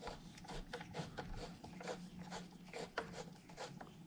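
Light, irregular metallic clicks and scrapes, several a second, as a thin steel tool pushes and works the pad retaining pin into a Brembo front brake caliper.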